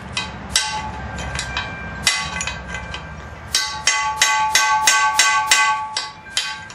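Ball-peen hammer driving a chisel against a U-joint's retaining clip in a steel driveshaft yoke, each blow ringing metallically. A few separate strikes, then a quick run of about ten blows after the halfway point, as the clip is worked loose.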